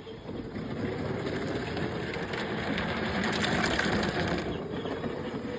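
ATV engine running as it is ridden, with a dense mechanical rattle that grows louder around the middle and then eases.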